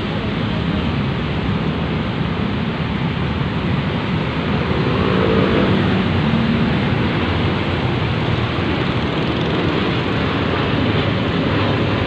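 Steady roar of road traffic on a busy city street, a continuous even noise with no single event standing out.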